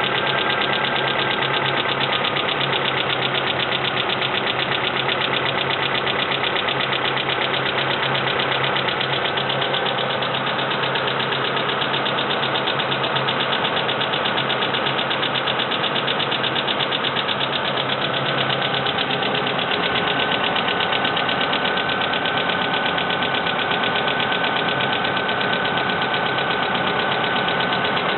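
Mitsubishi Lancer IX engine running steadily with a fast, even ticking from its hydraulic valve lifters after a timing belt replacement. The lifters lost their oil when the crankshaft and camshaft were turned without oil-pump pressure, and such a knock is taken as acceptable.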